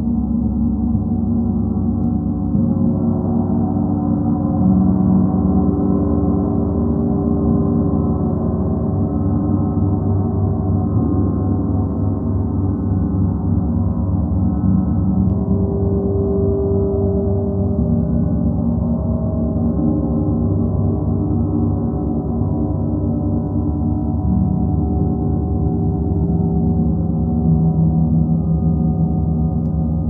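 Gongs ringing in a continuous, dense drone of many overlapping low tones, with no separate strikes standing out. Single tones within it slowly swell and fade.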